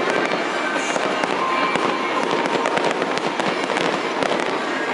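Aerial fireworks bursting one after another, with a steady, dense crackle of many small pops.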